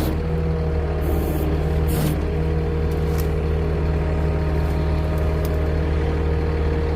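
A vehicle engine idling steadily, with a few brief rustles about one and two seconds in.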